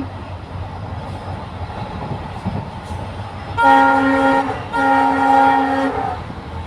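Indian Railways locomotive horn sounding two blasts, each about a second long with a short break between, about halfway in. They sound over the steady rumble of a train running on the track.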